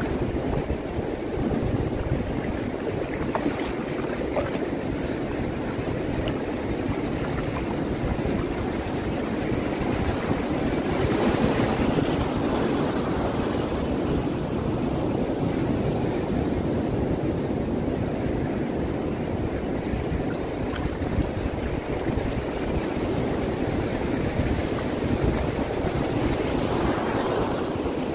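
Ocean surf washing over a shallow sandy beach, with a low wind rumble on the microphone; a wave breaks louder partway through and another swells near the end.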